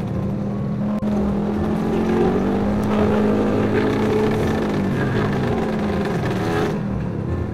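Motorcycle engine running under way in slow traffic, its note rising and falling with the throttle.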